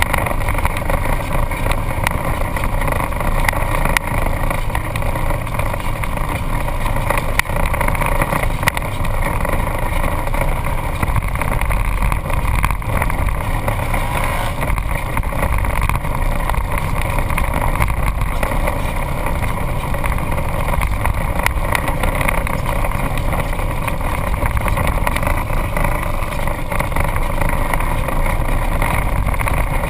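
Off-road vehicle's engine running steadily as it drives over sandy dirt trails, heard from a hood-mounted camera, with a few light knocks along the way.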